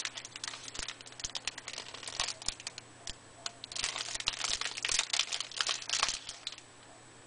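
Packaging crinkling and rustling as it is handled, with irregular small clicks, busiest about four to six seconds in.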